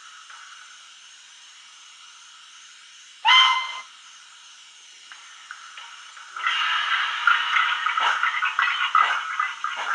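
Wheeltappers DCC sound decoders in a pair of Model Rail USA tank model locomotives, playing recorded steam sounds through the models' small speakers. A faint idling hiss with light ticks runs first. A short steam whistle blast sounds just after three seconds and is the loudest sound. From about six and a half seconds a much louder steam hiss with uneven chuffs starts as the locomotives get under way.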